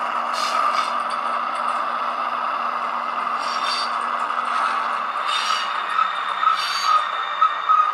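H0-scale ÖBB 4020 S-Bahn model running, its ESU LokSound 5 decoder playing a 4020 running sound through the model's small speaker as a steady hum. Short high squeals come about four times, and there are scraping, rattling wheel-on-track noises with a quick run of clicks near the end.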